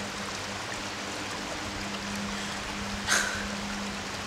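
Steady rushing of a forest creek running over rocks, with a low steady hum beneath it and one brief sharp sound about three seconds in.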